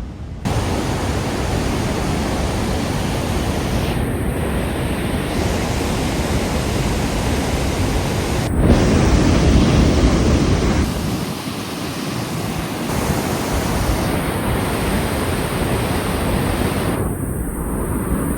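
Water rushing steadily through an opened dam spillway: a loud, continuous rush of noise that changes abruptly in level and tone a few times.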